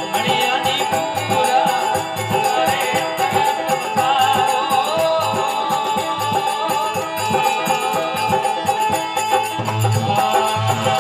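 Instrumental passage of folk devotional bhajan music: an organ plays a wavering melody over held notes, with a hand drum and a shaken rattle keeping a steady beat. The drum comes in stronger near the end.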